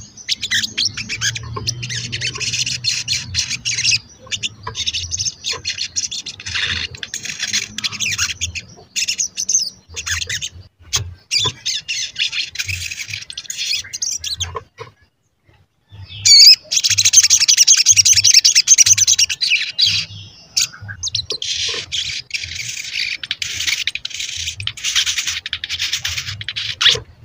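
Olive-backed sunbird (sogon) singing a fast, high-pitched chittering 'cuit cuit' song in runs of a few seconds, with short breaks, one near-silent pause about midway and the loudest run just after it.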